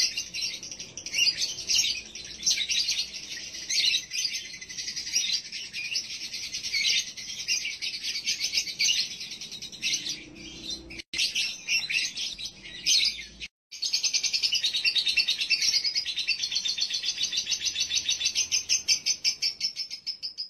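Male lovebird chattering in the long, rapid, stuttering 'konslet' ngekek style, used as a lure sound to stir a male's breeding drive. It breaks off twice briefly near the middle and then runs as a fast, very even pulsing.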